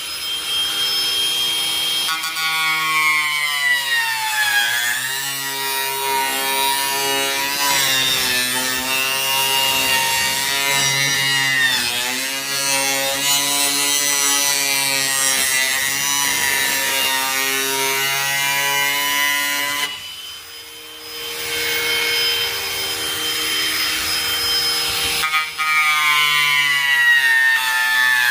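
Ryobi angle grinder with a chainsaw wood-carving disc cutting, its motor whine sagging in pitch and recovering as the disc takes load. About 20 seconds in the sound briefly drops away, then the grinder comes back up to speed.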